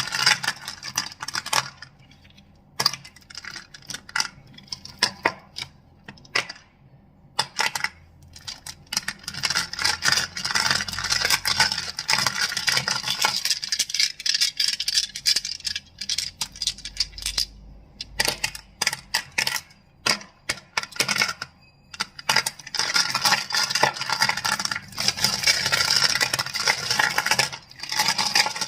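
Crystals being clicked and clacked together, in quick, dense runs of sharp clicks broken by short pauses.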